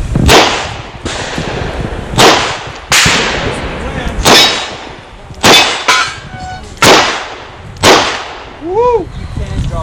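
Handgun shots fired at an irregular pace, about seven in all, each sharp and loud with a short echo after it.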